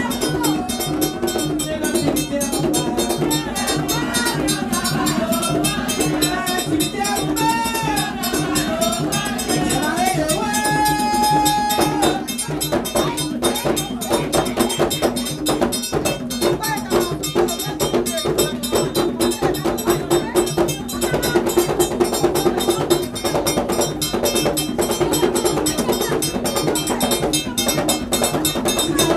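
Haitian Vodou ceremonial music: hand drums played in a fast, steady rhythm, with voices singing over them for about the first twelve seconds. After that the drumming carries on alone and grows denser.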